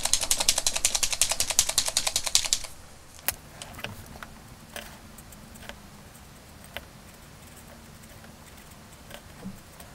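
Molotow Liquid Chrome paint marker being shaken hard, its mixing ball rattling rapidly inside the barrel, stopping suddenly a little under three seconds in. A few faint clicks follow.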